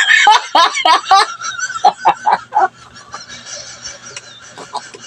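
A person laughing in a quick run of short "ha-ha" bursts that stops about two and a half seconds in, leaving only faint background sound.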